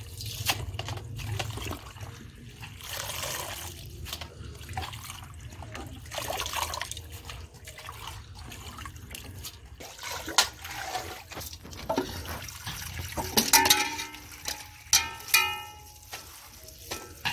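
Water from a hose pouring into a steel pot while hands swish and splash chopped spinach leaves being washed. Near the end come a few sharper knocks, some with a brief metallic ring, as the leaves are handled between the steel pot and a metal colander.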